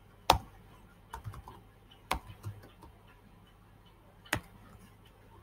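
Computer keyboard being typed on: a few scattered keystrokes rather than a steady run, the sharpest about a third of a second in, around two seconds in, and a little after four seconds.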